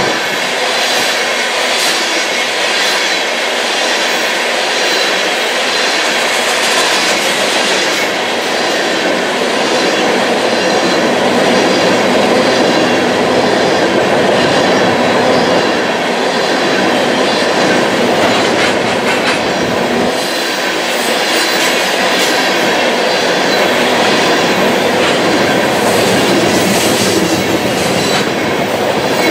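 Freight train of tank cars rolling past close by: a steady rumble and rattle of steel wheels on rail, with the wheels clicking over rail joints.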